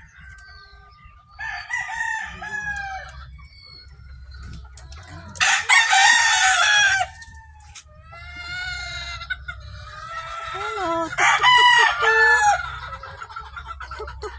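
Hens clucking and a rooster crowing, the two loudest calls about five seconds in and again about eleven seconds in.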